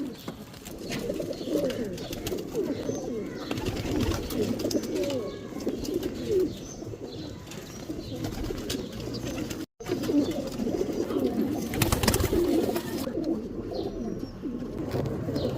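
A flock of domestic pigeons cooing, many low coos overlapping at once, with scattered light clicks. The sound cuts out for a moment about ten seconds in.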